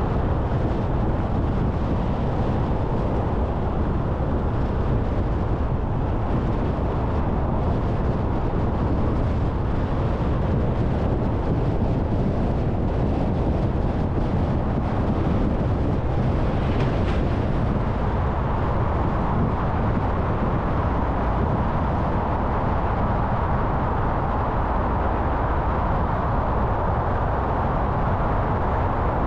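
Steady road noise of a car driving, strongest low down. The road noise takes on a slightly higher tone about two-thirds of the way in.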